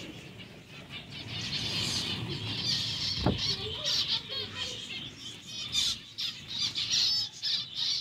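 Several small parrots chirping and chattering in quick, overlapping high calls, with one dull thump about three seconds in.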